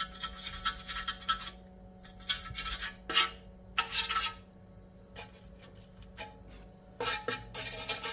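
Metal tools scraping and clinking against rusty brake hardware, in several short bursts with pauses between.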